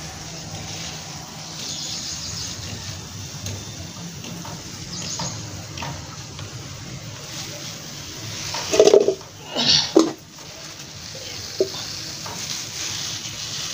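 Hand-held water sprayer misting water over freshly potted houseplants, a steady spray hiss, with a few short louder bumps or leaf rustles about two-thirds of the way through.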